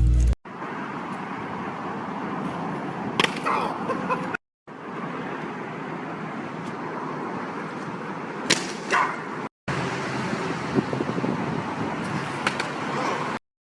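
Steady road-traffic noise with a few sharp clicks, broken by abrupt cuts into three short stretches.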